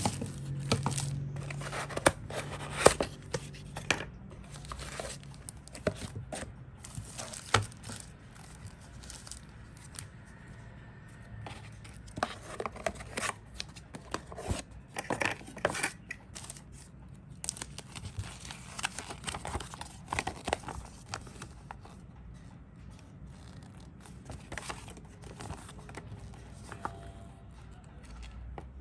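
Product packaging being opened and handled by hand: tearing, crinkling plastic and paper, and scattered sharp clicks and taps in irregular bursts, thinning out in the last few seconds.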